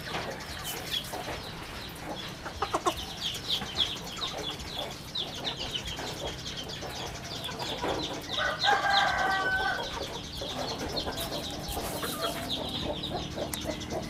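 A flock of young chickens feeding, with many short high-pitched peeping calls and clucks. About eight seconds in, one louder drawn-out call with several tones stands out for about a second and a half.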